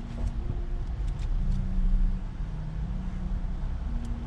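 Car running, heard from inside the cabin: a steady low rumble.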